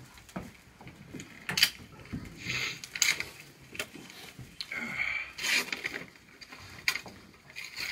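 Gift wrapping paper rustling and tearing as a present is unwrapped by hand, in short irregular bursts of crinkling.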